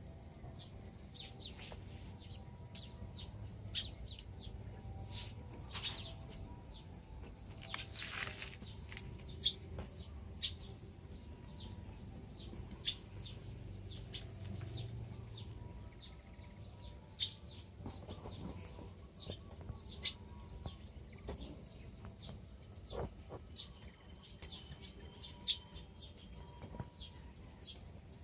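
Birds chirping: many short, high chirps scattered throughout, over a steady low background rumble.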